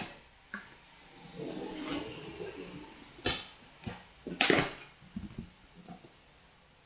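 Scissors slicing packing tape on a cardboard box, with tape tearing and cardboard flaps scraping and rustling as the box is pulled open, in several short bursts, the loudest near the middle.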